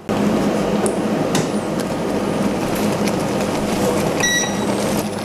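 Strawberry purée bubbling as it reduces in a stainless-steel saucepan, stirred with a silicone spatula, with a few sharp clicks. A short electronic beep sounds about four seconds in.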